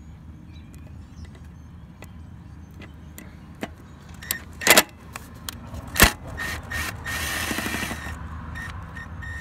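Tool working a T20 Torx bolt out of a 7.3L Powerstroke's fuel bowl heater element: scattered metal clicks, two sharp knocks around the middle, then a couple of seconds of fast, buzzy tool noise followed by a few short bursts, over a low background hum.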